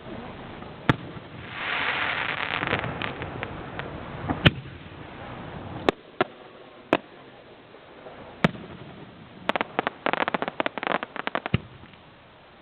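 Fireworks going off: sharp single shell bursts every second or two, a stretch of crackling hiss about two seconds in, and a rapid string of crackling pops near the end.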